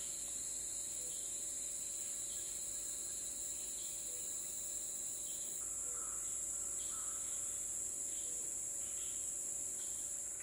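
Dense chorus of insects: a steady high-pitched drone, with faint short calls repeating about once a second.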